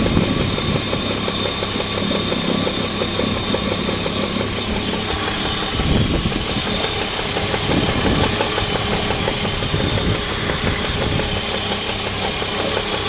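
Alpina Roadster engine running at idle with a steady, rhythmic knock, the engine knock that the owner says is getting louder. It swells briefly about six and eight seconds in.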